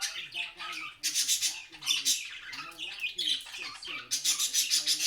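Birds squawking and chirping, many short calls overlapping. About four seconds in, they break into a fast, even run of harsh calls, about six a second.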